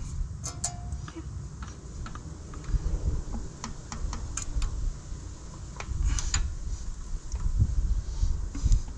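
Scattered light metallic clicks and taps from the valve rocker arms of the John Deere 1010 crawler's engine as they are handled by hand on the open cylinder head, over a low background rumble.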